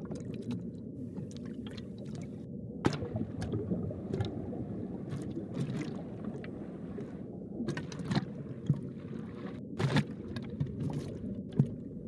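Hawksbill sea turtle biting and tearing at coral underwater: irregular crunching cracks, a dozen or so spread unevenly, over a steady low underwater rumble.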